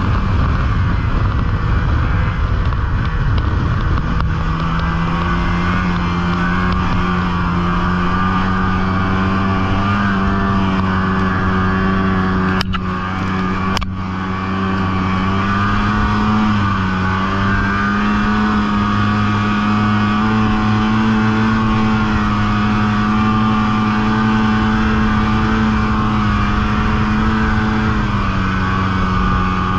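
Snowmobile engine running under way, holding a steady pitch that climbs a few seconds in and eases down slightly near the end. About halfway through it briefly dips in loudness, with two faint clicks.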